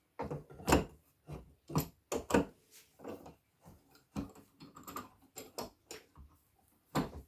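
Metal G-clamp clattering and knocking against a wooden rack as it is pushed into a slot and worked to sit in: a string of irregular sharp knocks and clicks, the loudest in the first few seconds.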